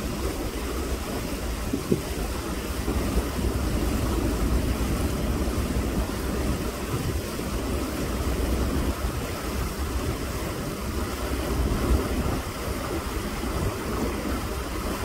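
Steady low rumble and rushing noise of a river cruise boat under way: engine drone mixed with water noise.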